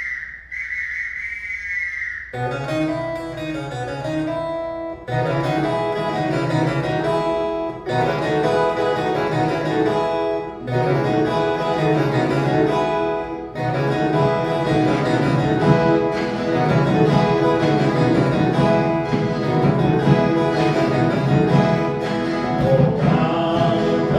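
A whistle blows a held note, and about two seconds in an ensemble of violas caipiras strikes up a Reisado (folia de reis) tune in strummed phrases that stop briefly every few seconds. Voices begin to sing near the end.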